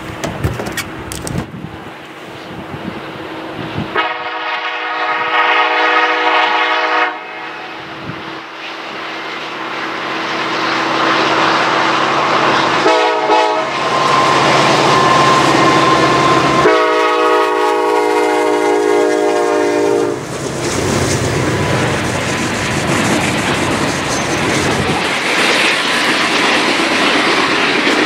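CN freight train approaching and passing: the locomotive's air horn sounds a long blast about 4 seconds in, a short one about 13 seconds in and another long one about 17 seconds in, over a growing rumble. From about 20 seconds the locomotives and freight cars roll past with wheels clattering on the rails.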